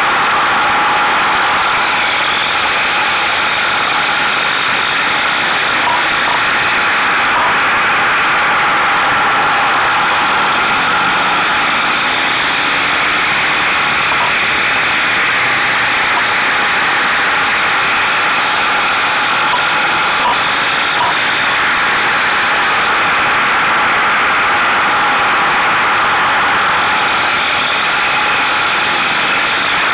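Steady rush of wind over a mirror-stalk-mounted camera on a Buell motorcycle at road speed, with the engine running underneath. The level holds even throughout.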